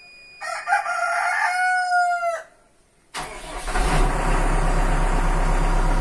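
A rooster crows once, for about two seconds, dipping in pitch at the end. About three seconds in, the backhoe loader's diesel engine starts and then runs steadily.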